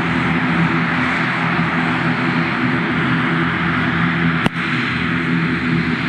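Aircraft engines running steadily, with one sharp click about four and a half seconds in.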